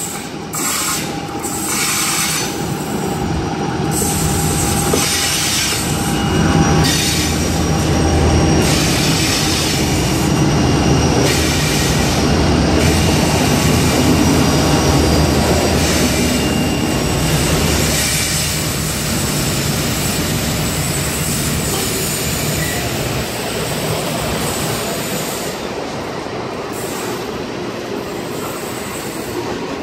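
Three Pacific National TT-class diesel locomotives pass close by with their engines running, loudest in the middle, followed by a long string of hopper wagons rolling past, their wheels squealing on the curve.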